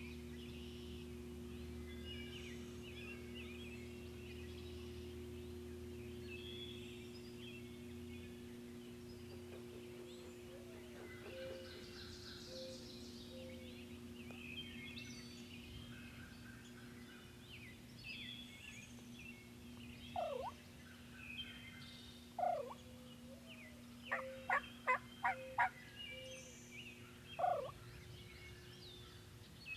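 Wild turkey calling: a few loud notes that fall in pitch, and a quick run of five sharp clucks, over songbirds chirping and a steady low hum.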